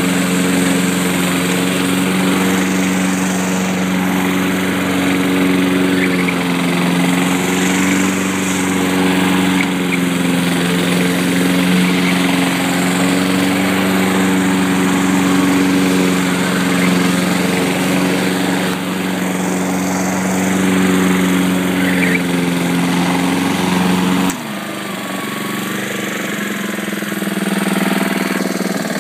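Walk-behind rotary lawn mower's small engine running steadily at cutting speed as it is pushed across grass. About four seconds before the end its note drops suddenly and it runs quieter.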